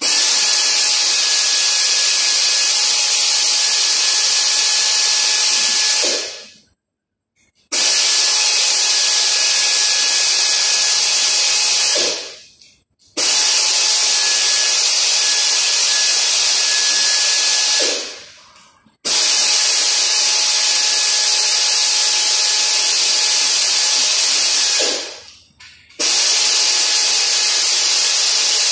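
Compressed-air blow gun hissing in long blasts of five to six seconds each, with about a second's pause between them, as it blows out a dismantled Toyota Land Cruiser V8 engine. A faint thin whistle rides on each blast.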